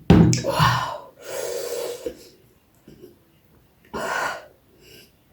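Close-miked mukbang eating sounds: loud, noisy slurping and sharp intakes of breath while eating noodles, in three bursts, the longest in the first two seconds and a shorter one about four seconds in.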